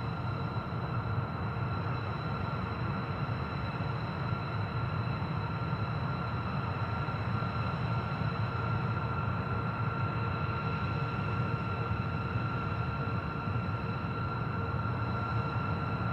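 B-2 Spirit stealth bomber's four General Electric F118 turbofan engines running at low power as it taxis: a steady high whine over a low rumble.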